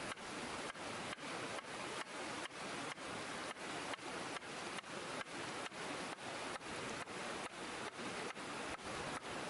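Cleaver chopping through a white radish onto a wooden chopping board, a steady rhythm of about two to three cuts a second, over the steady rush of river water.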